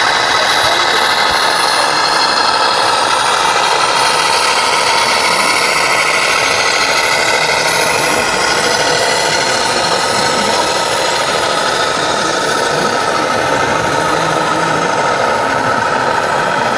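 Steady truck engine sound from a radio-controlled Mercedes-Benz Actros scale model truck driving.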